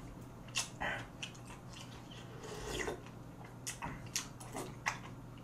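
Close-up eating sounds of a person taking spoonfuls of pork-bone soup: scattered soft mouth smacks and clicks of chewing and sipping.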